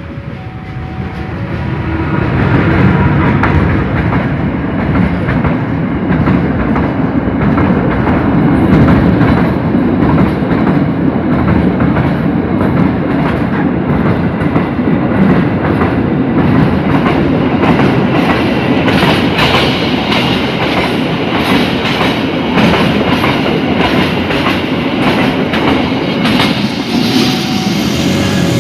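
A locomotive-hauled train passing close by, its wheels clattering in a steady clickety-clack over the rail joints. It builds over the first few seconds, then holds loud and steady.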